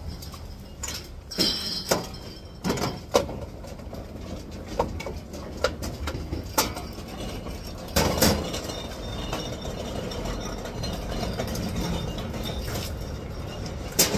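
Irregular clicks, knocks and clatter of empty bottles and cans being handled and dropped into plastic sorting bins, over a steady low background rumble.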